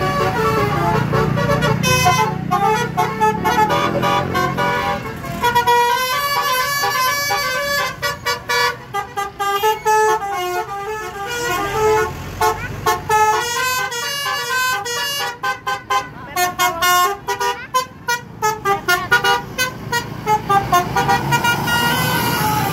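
Bus 'telolet' horn: a set of horns sounding several pitches together in a quick, choppy tune that steps up and down, switching on and off rapidly through the middle of the stretch. Beneath it is the low rumble of the bus engine, strongest in the first few seconds.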